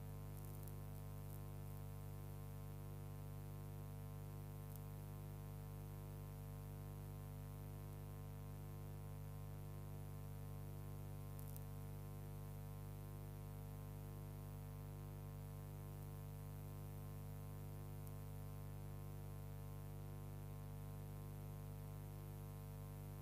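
Steady electrical mains hum with a stack of many overtones, unchanging throughout, with a few faint clicks.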